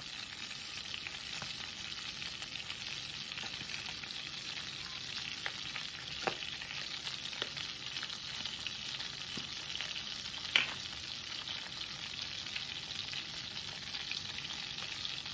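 Butter sizzling as it melts in two cast iron pans, a steady hiss with a few light clicks, the sharpest about ten seconds in.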